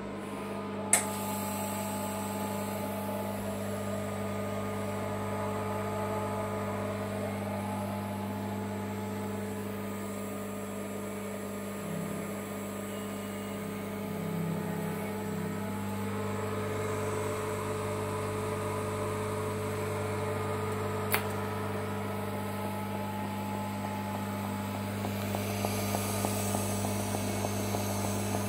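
Steady electrical mains hum with a faint higher whine from a running orbital TIG welding set. Two sharp clicks sound, one about a second in and one about three quarters of the way through.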